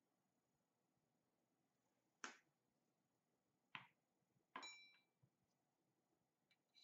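Near silence broken by three sharp clicks of hard objects being handled on a work table. The third, about four and a half seconds in, is a short clink that rings briefly.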